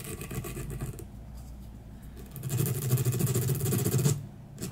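Small dubbing brush scrubbed roughly back and forth over Antron dubbing on a hook in the vise: fast rasping brush strokes that ease off about a second in and come back harder from the middle until near the end. The brushing combs the dubbing ball out into a loose, tapered shell around the hook.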